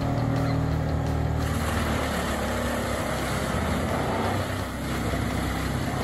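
Tracked wood chipper's engine running steadily, then about a second and a half in the sound turns rough and noisy as it starts chipping logs fed in by a crane.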